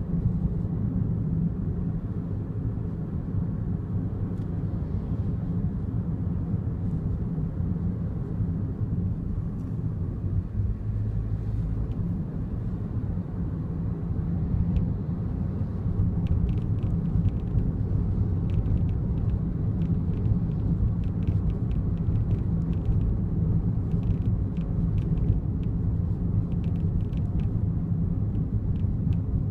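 Daihatsu Wake cabin noise while driving: a steady low road rumble, with faint, irregular rattling clicks from around the driver's seatbelt that become frequent from about halfway on. These clicks are the abnormal noise that appeared a month after delivery.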